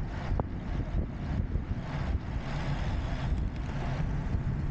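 Wind and road noise while riding a bicycle on a paved road: an uneven low rumble from wind buffeting the microphone, with a steady rushing hiss over it.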